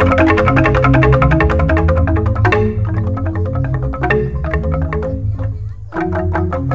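Balinese jegog ensemble of bamboo tube xylophones struck with mallets: rapid interlocking strikes ring over deep, sustained bass tones from the large bamboo tubes. The texture thins out about two and a half seconds in, nearly drops away just before the end, then the full ensemble comes crashing back in.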